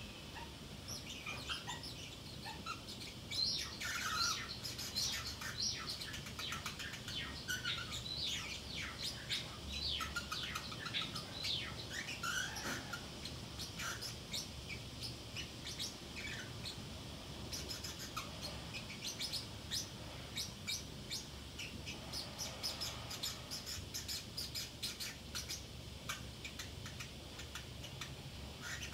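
Pacific parrotlet chattering to itself in a quiet, continuous run of quick high chirps and clicks. A few short gliding calls stand out about four and twelve seconds in.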